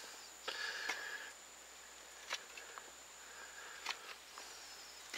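A fixed-blade knife shaving around the end of a green hardwood stick to chamfer the top of a stake: faint scraping cuts, with the longest about a second in and another near four seconds, and a few small clicks of the blade on the wood.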